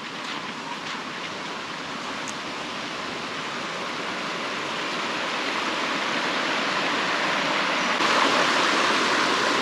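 A steady rush of water: rain falling together with a flowing river, growing gradually louder.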